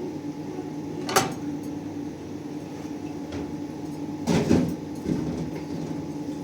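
A sharp knock about a second in and a louder clatter of knocks a few seconds later, over a steady low hum.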